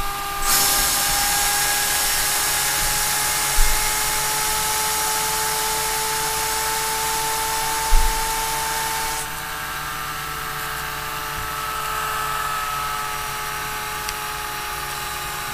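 Tesla-type bladeless steam turbine with a stainless steel rotor, spinning on low-pressure steam: a steady high whine under the hiss of venting steam. The hiss gets much louder about half a second in and drops back at about nine seconds. There are two brief low thumps along the way.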